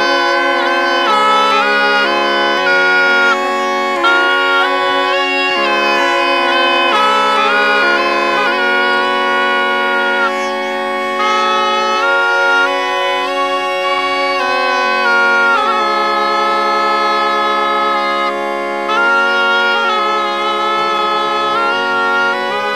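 Bagpipe music: a melody played over steady, unchanging drone notes.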